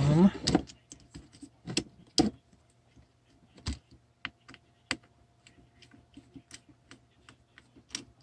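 Scattered light clicks and ticks of small tools and plastic parts being worked as a micro drone's camera and video transmitter are unscrewed and pried off, spaced irregularly a few per second at most. A short hummed vocal sound opens it, over a faint steady electrical hum.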